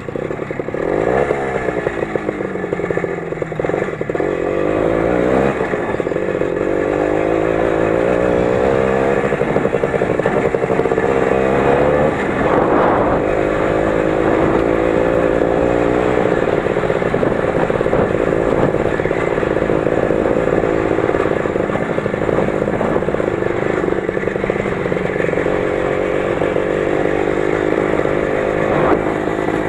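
Lider 3.221 20 hp motorcycle engine running under way. Its revs rise and fall in the first few seconds, then hold fairly steady, with a brief thump near the end.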